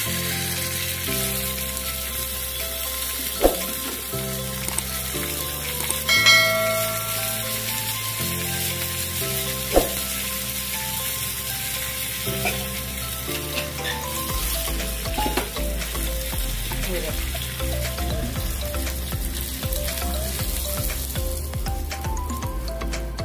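Mustard seeds, urad dal, curry leaves and green chillies sizzling in hot oil in a small steel tempering pan, as the tempering is fried. A few sharp metal clinks from the pan, one ringing briefly about six seconds in.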